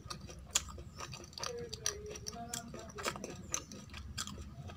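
A hand mixing rice with kadhi on a steel plate, with irregular light clicks as the fingers hit the metal.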